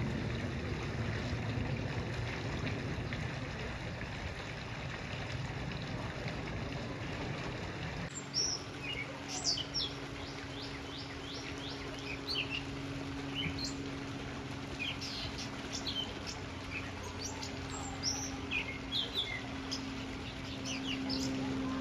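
A distant aircraft passing high overhead, heard as a steady, even rumble. About eight seconds in, this gives way to songbirds chirping over and over, with a steady low hum beneath them.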